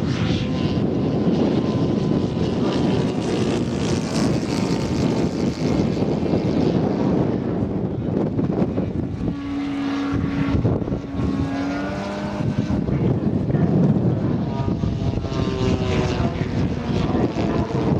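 Propeller engines of large-scale radio-controlled model fighter planes flying past, a continuous engine drone. A steady engine note holds for a few seconds in the middle, and the pitch shifts as a plane passes near the end.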